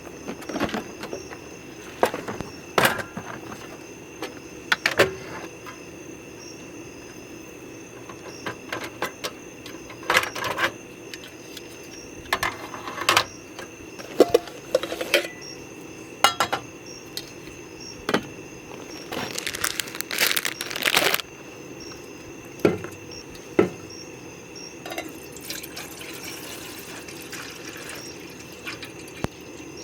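Scattered clinks and knocks of camp dishes and gear being handled, with a short burst of pouring water about twenty seconds in, over a steady high insect hum.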